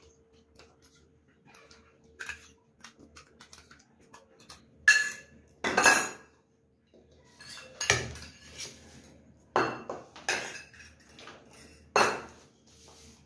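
Stainless steel bowls and spoons clinking and knocking as the bowls are drained and set down on a wooden table: a string of sharp metal clinks with a short ring, loudest around the middle and again near the end.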